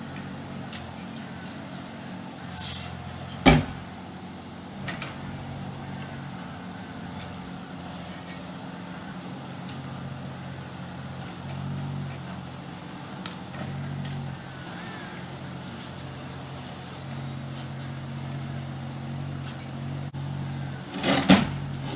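Mini excavator's diesel engine running steadily, growing louder in stretches as the arm and bucket work. A loud sharp knock comes about three and a half seconds in, with a smaller one later and a few more sharp knocks near the end.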